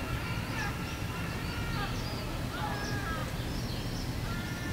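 Birds chirping and calling outdoors, many short high calls, some gliding in pitch, over a steady low background rumble.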